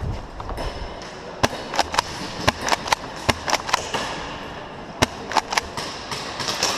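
Airsoft gunfire: a run of sharp, irregular cracks, several a second, starting about a second and a half in.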